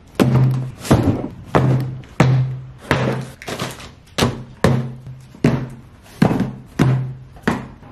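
Music with a heavy, thudding beat: a dozen low thuds, about three every two seconds.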